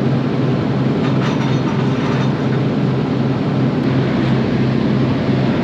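Combine harvester running steadily with a low engine drone and faint mechanical clatter, test-run after a replaced counter shaft belt.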